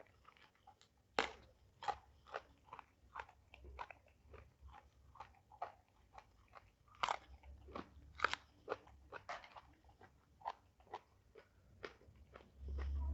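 Close-miked chewing and crunching of food in a person's mouth: a quick, irregular run of wet, crisp crunches and bites. A low hum comes in near the end.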